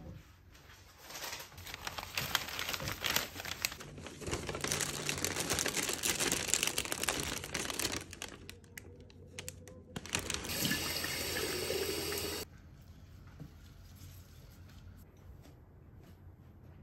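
Crinkling and rustling of a clear plastic flower sleeve and kraft-paper bouquet wrapping as it is pulled off the stems, a dense run of crackles. Near the end it gives way to about two seconds of a steady rushing noise, and then only faint room noise.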